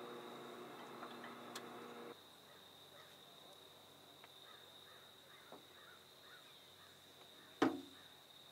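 Faint steady hum that cuts off abruptly about two seconds in, followed by faint, repeated small chirping calls and one sharp knock shortly before the end.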